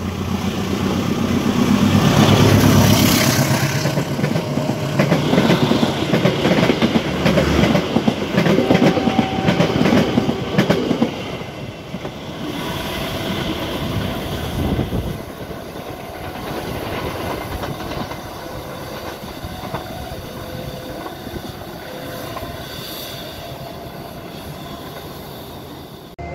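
Diesel-hauled passenger train passing close by on the adjacent track: the locomotive's engine rumble builds over the first few seconds, then the carriage wheels clatter over the rail joints. About eleven seconds in the clatter eases, and it settles into a quieter, steady rolling of the train.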